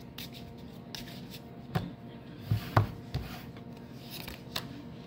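A deck of cards being shuffled by hand, the cards rubbing and slipping against each other, with a few sharper knocks of the deck near the middle.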